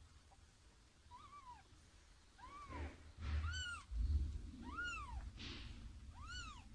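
Newborn kittens mewing: five short, high-pitched calls that each rise and fall, about one a second. A loud low rumble comes in the middle.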